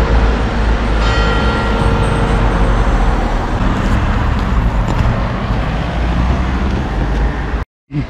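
Steady low engine rumble under a dense rushing noise.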